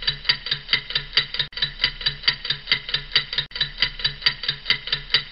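Background music: a steady ticking, clock-like beat with bell-like tones, a little over two ticks a second.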